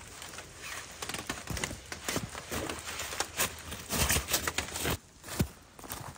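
Rustling of nylon hammock fabric and a puffy jacket, with irregular small knocks, as a boot is pulled on and a person climbs out of a hammock.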